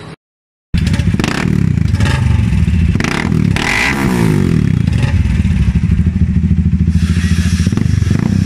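Bajaj Dominar 400's single-cylinder engine idling through an aftermarket silencer, starting after a brief cut about half a second in. A short rise and fall in pitch comes about three to four seconds in.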